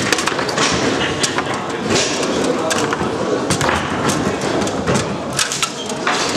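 Table football in play: the ball struck by the player figures and the rods and handles clacking against the table, an irregular run of sharp knocks.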